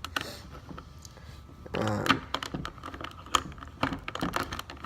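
Hard plastic pieces of a Rubik's cube clicking and tapping as they are handled and pressed back into the cube during reassembly. A scatter of short, sharp clicks, busier from about two seconds in.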